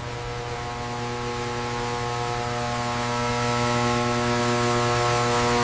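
Steady machinery hum in a submarine engine room: several unchanging tones over a hiss, growing slowly louder.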